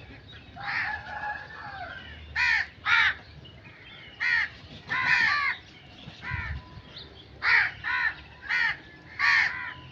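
Crows cawing: a series of about a dozen harsh caws, some short and clipped, a few drawn out longer.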